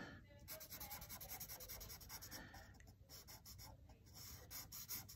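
Faint strokes of a Sharpie marker's felt tip drawing lines on paper.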